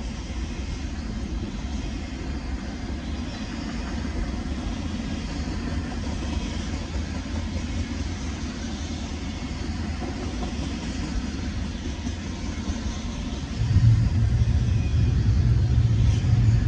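Double-stack intermodal freight train rolling past: a steady rumble of steel wheels on rail and well cars passing. Near the end a louder low rumble suddenly sets in and stays.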